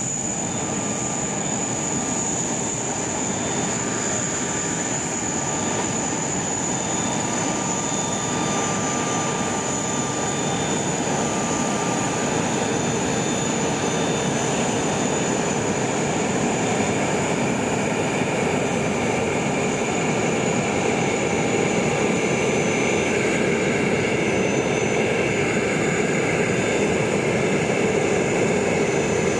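Airbus A380-800 under tow with its main engines shut down: a steady high turbine whine over a rushing noise, growing slowly louder as the aircraft passes close by.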